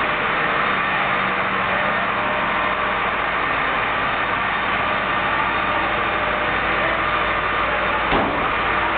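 Fire engines' diesel engines running steadily at idle, a dense continuous rumble, with a brief knock about eight seconds in.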